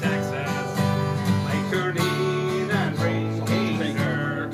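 Music: an acoustic guitar strummed in steady chords.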